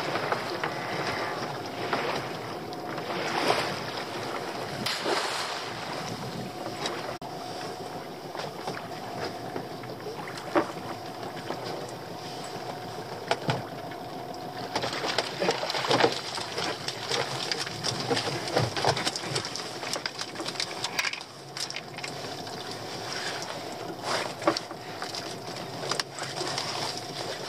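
Lobster pots being hauled aboard and handled on a small open boat: scattered knocks and rattles of the netted pot frames against the hull, over steady wind and sea noise.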